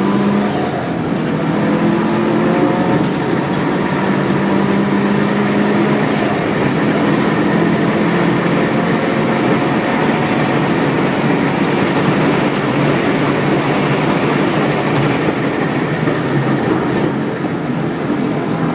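Subaru WRX race car's turbocharged flat-four engine running hard on track. Its note shifts in pitch over the first few seconds, then a steady mix of engine and road noise takes over.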